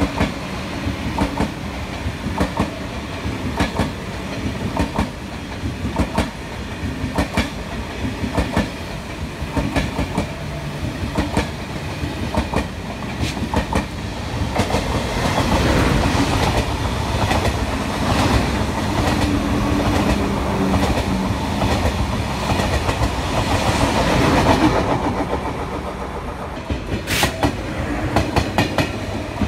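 Eurostar Class 373 high-speed trainset rolling past, its wheels clicking over the rail joints. About halfway through a TGV Duplex joins it on the next track and the running noise grows louder. Near the end there is one sharp clank.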